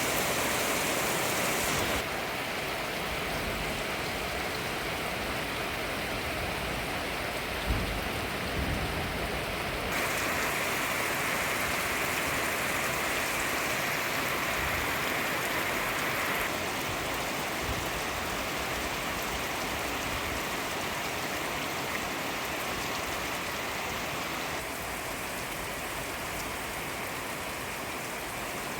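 Steady rain falling and pattering on surfaces, a continuous hiss whose tone and loudness change abruptly a few times, with one short knock about eight seconds in.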